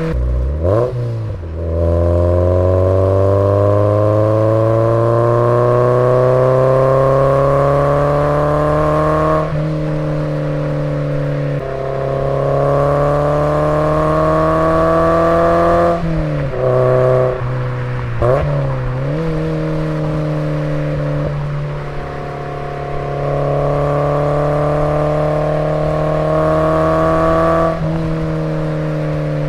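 Toyota MR2 Spyder's 1.8-litre four-cylinder engine heard through a TTE catback exhaust with the precat deleted, close to the tailpipe while driving. The engine note climbs slowly through several long pulls, dropping in pitch at each gear change, with a few quick revs up and down in between about halfway through.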